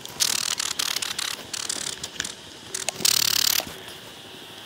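Wooden beehive frames being worked in the box, scraping and crackling with many small clicks for the first second and a half, then a louder half-second rasp about three seconds in.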